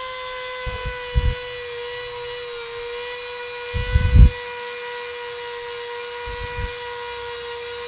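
INGCO mini rotary tool (mini die grinder) running at high speed with a steady high whine, its sanding bit working a coconut shell; the pitch sags briefly under load. Three low thumps break in, the loudest about four seconds in.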